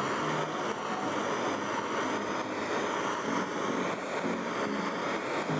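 Hand-held MAP-gas torch burning with a steady hiss as its flame is played over the welds of a raw steel two-stroke exhaust pipe to heat-blue them.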